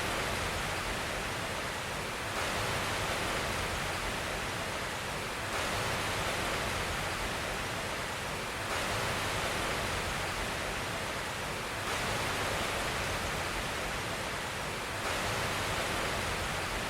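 Steady rushing hiss with no tones or pitch, like rain or running water, its level and colour shifting slightly about every three seconds.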